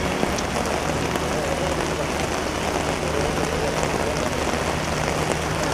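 Heavy rain falling: a steady, even hiss with fine drop patter.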